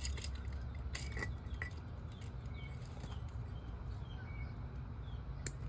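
Faint short bird chirps over a steady low hum, with a few sharp clicks in the first second and a half and one more near the end.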